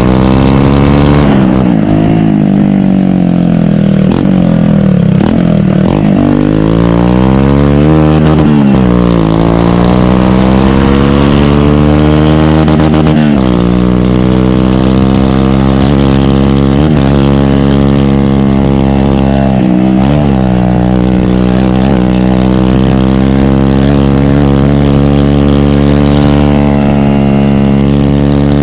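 A 150 cc single-cylinder motorcycle engine running loud. It revs up and down repeatedly for the first dozen seconds, then holds a steadier pitch with a few brief dips.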